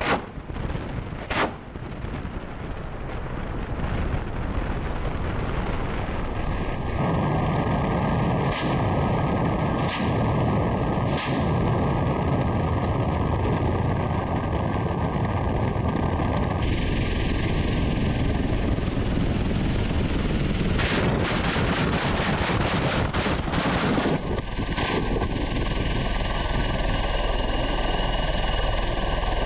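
Ka-52 attack helicopter heard from a camera mounted on its fuselage: steady rotor and engine noise mixed with rushing wind, broken by sharp bangs of unguided rockets leaving the pod at the start and again just over a second later, and a quick run of sharp reports about three quarters of the way through.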